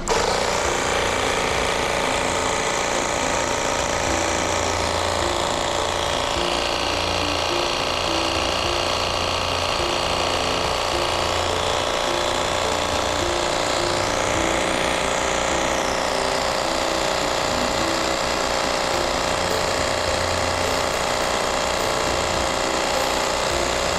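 Meltec ML250 12-volt portable air compressor switching on and running steadily, pumping up a car tyre as its gauge pressure climbs.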